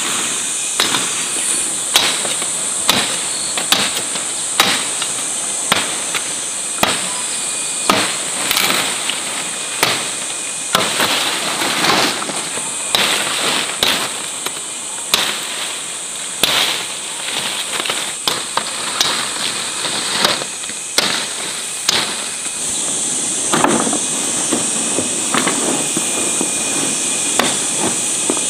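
Repeated sharp strikes of a hand tool, about one a second, over a steady high-pitched insect drone. The strikes thin out and soften in the last few seconds.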